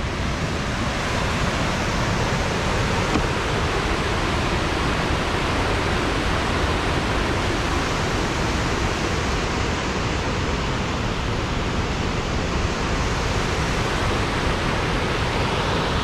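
A river in high, muddy flood rushing over a rock ledge and through whitewater rapids: a loud, steady rush of water with no let-up.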